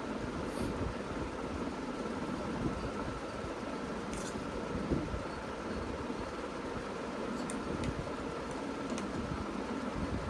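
Steady mechanical hum and hiss with a faint constant high tone, and a few faint clicks.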